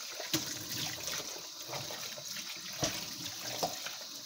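Kitchen tap running steadily while a cucumber is rubbed clean under the stream, the water splashing over it into a plastic tub in the sink. A few light knocks sound through the water, the sharpest about a third of a second in and near three seconds in.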